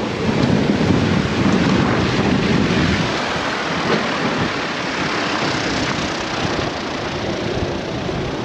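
Strong gusty wind rushing over the microphone, a loud, dense roar that eases a little after the first three seconds.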